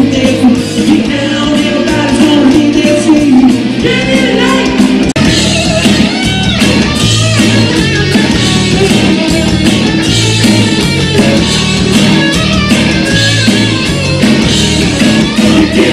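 A rock band playing live: a man singing over electric guitars and a drum kit.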